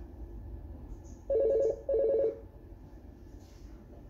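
Fanvil X7C IP desk phone ringing with an incoming call: two short trilling two-tone rings, each about half a second long with a brief gap between, about a second and a half in.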